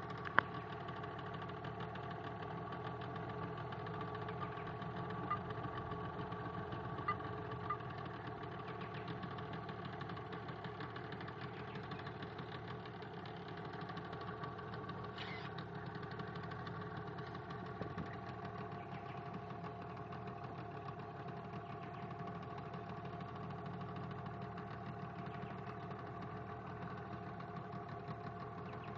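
Motorboat engine running steadily at an even speed as the boat travels along the river.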